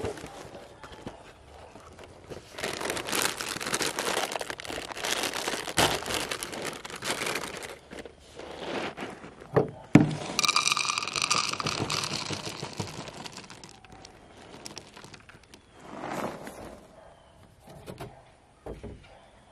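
Plastic cereal-bag liner crinkling as it is pulled open. About ten seconds in, dry cereal pours into a bowl, rattling for a few seconds.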